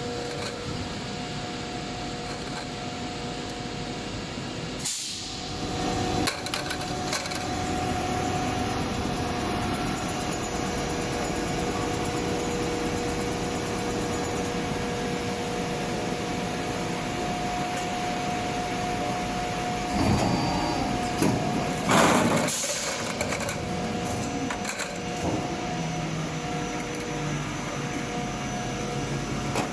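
An 18-cavity PET preform injection moulding machine running in production. Its drive gives a steady mechanical hum with two constant tones. About two-thirds of the way through, two loud rushes of noise, a couple of seconds apart, stand out.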